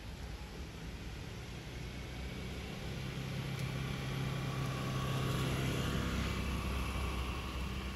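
A motor vehicle's engine passing by: a steady low hum that grows louder over the first few seconds, peaks a little past the middle, and fades near the end.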